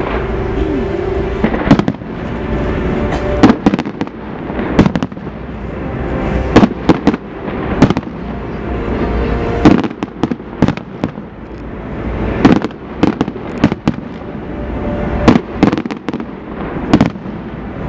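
New Year's fireworks going off: many sharp bangs and crackles at irregular intervals, some in quick clusters, over a continuous rumble of distant bursts.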